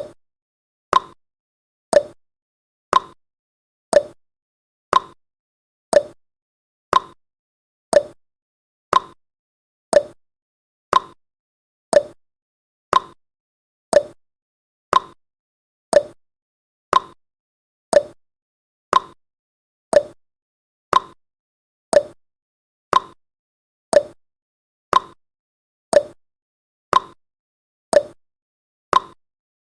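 Countdown timer sound effect: a short tick once every second, evenly spaced, with silence between ticks.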